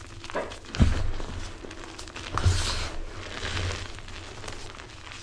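Gloved hands squeezing and crushing blocks of MagKing gym chalk (magnesium carbonate) packed in cornstarch, giving an irregular run of soft crunches. The loudest comes about a second in and another near two and a half seconds.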